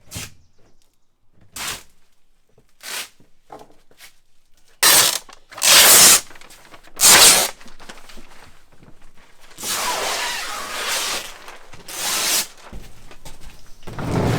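Vacuum bag and bagging layers being pulled off a freshly cured epoxy lamination: a few faint crinkles, then several loud ripping tears of about half a second each, then longer tearing stretches lasting over a second.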